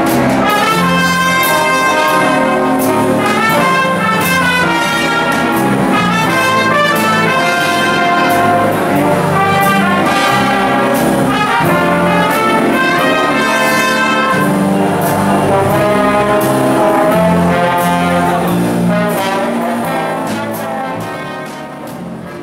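A big band playing live, with the trumpets and trombones carrying the melody over drums. The level dips near the end.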